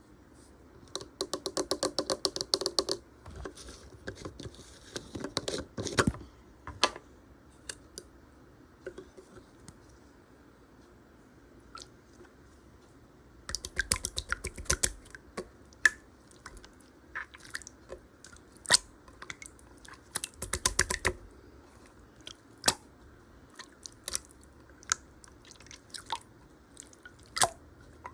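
Slime being squeezed and pressed by hand, making runs of rapid small clicks and pops with single sharper clicks between them.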